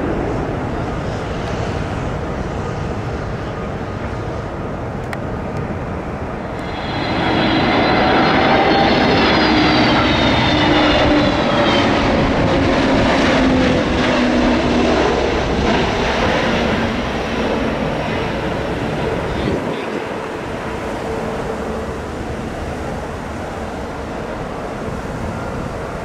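Jet airliner passing close by. Its engines' whine slides down in pitch as it goes past, loudest from about seven seconds in, then fading into a steady rushing noise.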